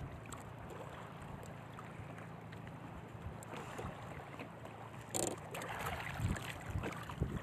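Steady wind and water noise around a small outrigger fishing boat. About five seconds in, water splashes and a few knocks follow as a hand dips into the sea beside the hull.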